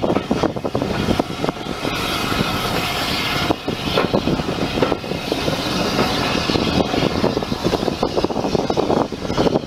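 Passenger train carriage running along the track as the train slows into a station, heard at the open carriage window: a continuous clattering rumble of wheels on rail with a hiss over it.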